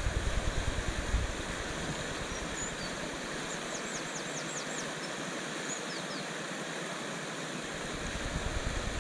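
Water rushing steadily over a low concrete river weir, with wind buffeting the microphone for the first second or two and again near the end. Around the middle a small bird gives a quick run of about six high chirps, then a couple more.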